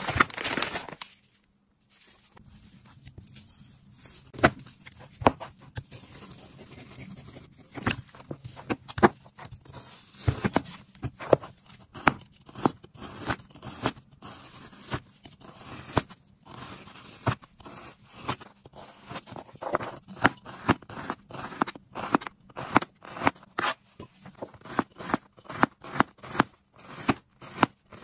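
Large Chinese cleaver slicing raw tuna loin on a plastic cutting board: short sharp knocks of the blade meeting the board, growing steadier in the second half at about one and a half a second. Plastic wrap crinkles briefly at the start.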